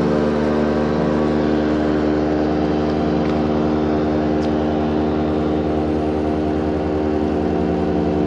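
Motorboat engine running at a steady speed, an even, unchanging drone.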